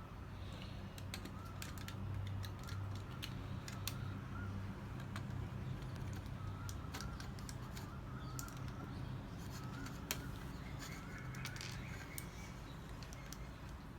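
Plastic Lego bricks clicking and clattering as pieces are handled and pressed together, many short sharp clicks at irregular intervals over a steady low hum. Faint short chirps recur throughout.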